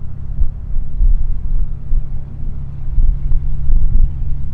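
Cessna 175C Skylark's geared Continental GO-300 engine running at low taxi power, a steady low drone heard from a distance. Uneven low rumbling from wind on the microphone lies over it.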